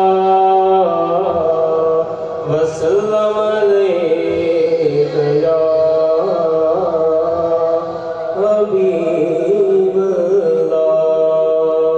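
A solo male voice chanting a naat (devotional verse) into a microphone. Long held notes alternate with wavering, ornamented runs, and he settles on another long held note near the end.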